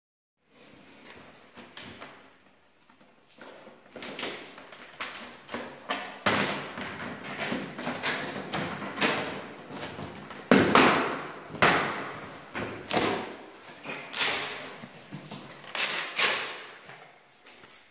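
Plastic shrink-wrap being torn and pulled off a cardboard box and the box's flaps opened: a long run of rustling, crinkling and scraping noises, loudest about ten seconds in.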